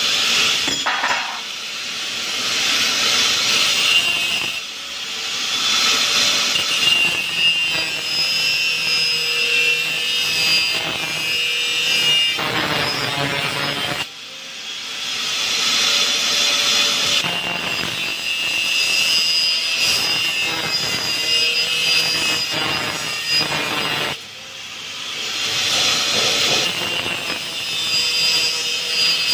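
Corded handheld power tool working against a steel grill bar, a continuous loud scraping with a steady high whine in it. It stops briefly twice, about halfway through and again near the end, and then starts again.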